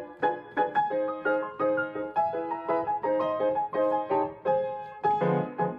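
Solo grand piano playing a flowing passage of quick successive notes and chords, each note struck and then dying away.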